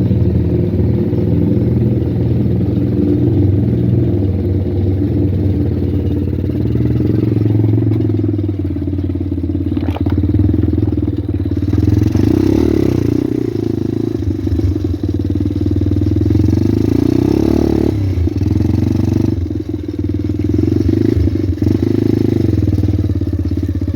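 Pit bike's single-cylinder engine running steadily at low revs as the bike wades through a stream. About halfway through a rougher, hissing noise is added for several seconds.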